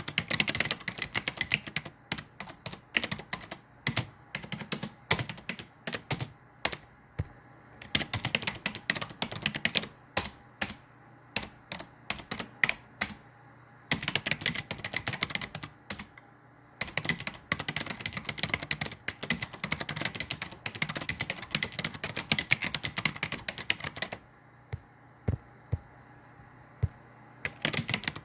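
Typing on a computer keyboard: rapid runs of key clicks in bursts several seconds long, broken by short pauses with only a few scattered keystrokes.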